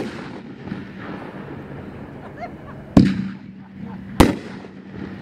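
Winda "Pyro Candy" 500-gram fireworks cake firing its shots. There is a sharp bang at the start, another about three seconds in and a third about a second after that, each with a short echoing tail.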